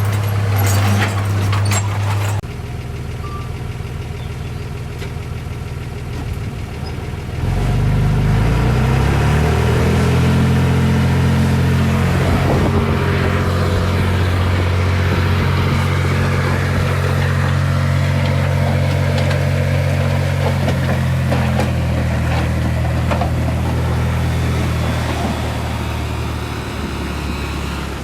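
Heavy diesel engine of earthmoving machinery running, picking up speed about seven seconds in and staying loud under load, then easing off near the end.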